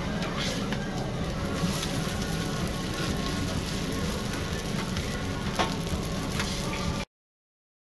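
Sheets of cold noodles sizzling on a hot flat-top griddle, with metal spatulas scraping and tapping on the steel now and then. The sound cuts off suddenly about seven seconds in.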